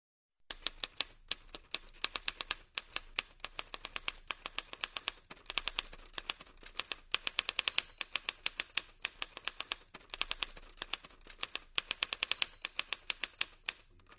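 Typewriter sound effect: rapid key clicks in irregular runs with short pauses, matching text typed onto the screen letter by letter.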